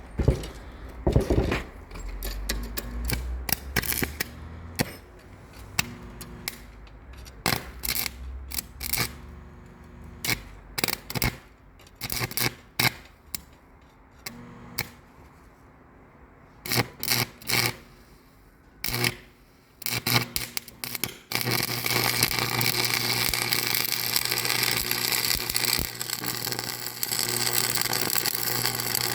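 Irregular knocks and clicks, like metal parts being handled. About 21 seconds in, a machine starts up and runs with a loud, steady noise.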